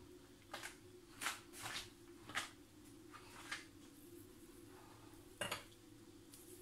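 Faint, brief rustles and brushes from hands lifting and folding a thin sheet of pastry dough over its filling on a granite countertop, about six soft handling noises over a steady low hum.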